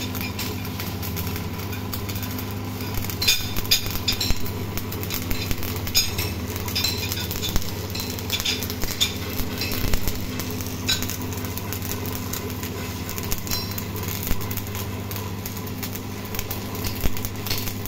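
Shielded stick (arc) welding on steel: a steady low hum under scattered sharp crackles and metallic clicks, in clusters about three to four seconds in, around six, seven, nine and eleven seconds.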